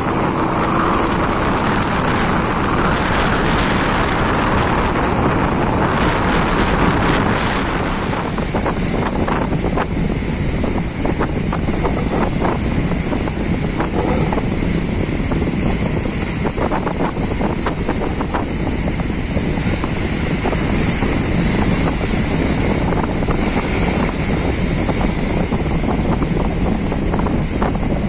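Strong wind rushing over the microphone with breaking waves: a loud, steady, dense roar. About a third of the way in it turns to many small crackles and splashes.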